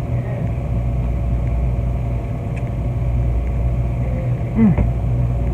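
Steady low mechanical hum of running machinery, with a short falling squeak and a click about four and a half seconds in.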